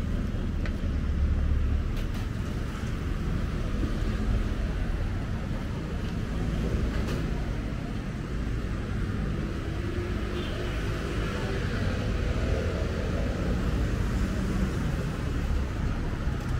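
Street traffic: the steady low rumble of passing cars.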